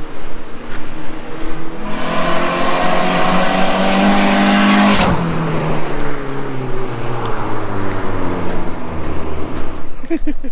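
Turbocharged Proton Wira (4G93T) with an S-flow muffler accelerating hard past, its engine note rising for about three seconds, then a sharp wastegate hiss as it goes by about five seconds in. The note drops and fades away after it passes, the exhaust itself sounding fairly quiet.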